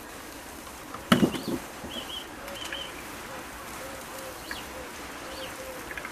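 A single knock about a second in, then birdsong: a pigeon cooing softly with short high chirps from a smaller bird, over a steady faint hiss.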